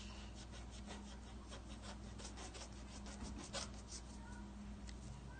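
Pencil eraser rubbing back and forth on a paper worksheet in a run of quick, faint scratchy strokes that die away after about three and a half seconds.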